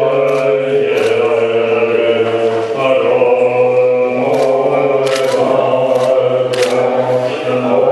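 Tibetan Buddhist monks chanting together in low, steady, sustained voices, the pitches held long and shifting slowly. A few sharp clicks cut through the chant.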